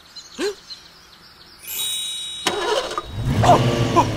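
Sports car engine sound effect: a sharp start about two and a half seconds in, then revving with rising and falling pitch. Before it comes a short bright, ringing high sound.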